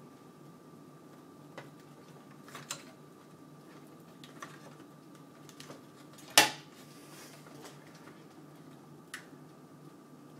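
Scattered clicks and knocks of plastic connectors and cable bundles being handled while ATX power cables are pushed into a PC motherboard, with one loud sharp click about six seconds in, over a faint steady hum.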